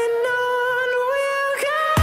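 Music: a singer holding one long, steady note with no beat underneath.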